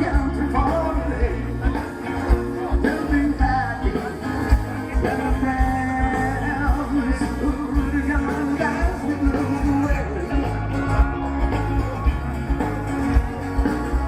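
A rock and roll song played from vinyl: a singer over a steady beat with bass and guitar.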